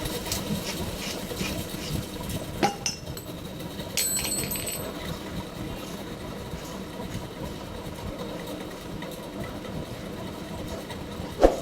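Metal clinks, taps and handling noises as the ceiling fan's parts are taken apart, with a brief ring about four seconds in and one sharp knock near the end.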